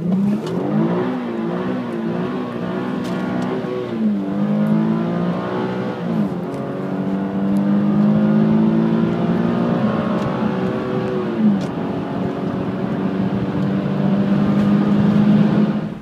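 Infiniti G37S's 3.7-litre V6 heard from inside the cabin under hard acceleration. The revs rise and fall several times in the first six seconds, then climb in longer pulls, with the pitch dropping at each upshift.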